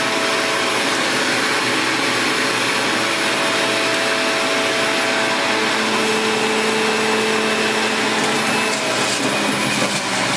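Hamilton Beach centrifugal juicer running steadily, loud, as it juices apple halves; its hum changes pitch about six seconds in, with a few light knocks near the end.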